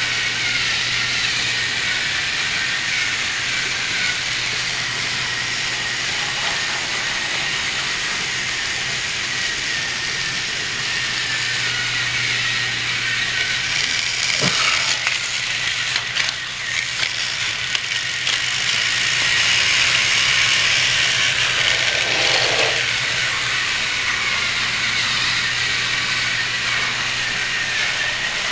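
Battery-powered Thomas TrackMaster toy engines running on plastic track: a steady whine from their small geared motors with the rattle of wheels over the track, and a few sharper clicks about halfway through.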